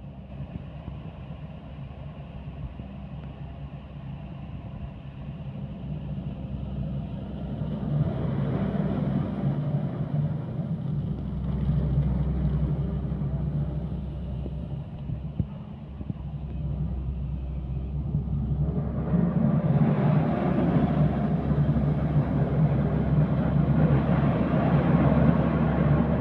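Hydraulic excavator's diesel engine running with a steady low hum. It grows louder for several seconds about eight seconds in, and again from about two-thirds through, as the machine works the coal slurry.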